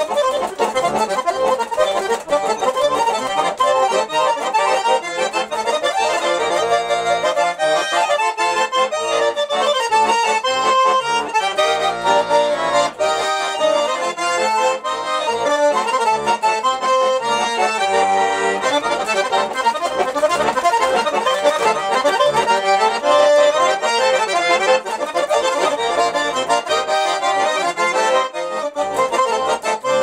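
Russian garmon, a small button accordion, playing a tune with chords, steady and unbroken.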